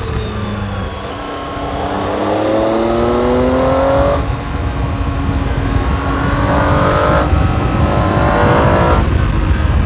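Triumph Tiger 800 XRx's three-cylinder engine through its stock exhaust, accelerating hard through the gears. The pitch climbs in three runs, each cut off by an upshift, at about four, seven and nine seconds in, over low wind rumble on the helmet microphone.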